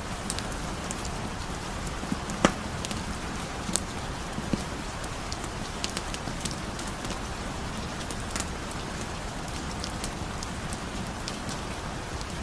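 Steady heavy rain hiss with a wood fire crackling over it: scattered sharp pops every second or so, the loudest about two and a half seconds in.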